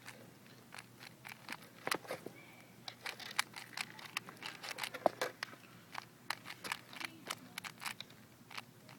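Rubik's cube being turned quickly by hand, its plastic layers clicking and clacking in an irregular run of sharp clicks, several a second.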